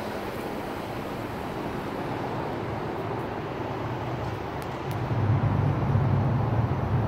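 Street traffic noise. A shuttle bus drives past, and its low engine hum grows louder from about five seconds in.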